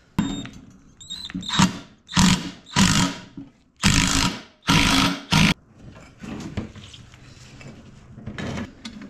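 A man grunting and straining with effort several times in the first half, then faint clicks and rustling from the tools, as he forces a polyurethane control arm bushing in by hand with threaded rod and C-clamps.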